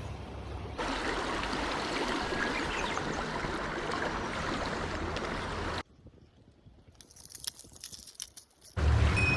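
Mountain stream water rushing steadily. It cuts off suddenly about six seconds in, leaving a quiet stretch with scattered sharp clicks, and the rushing returns near the end with a low rumble of wind on the microphone.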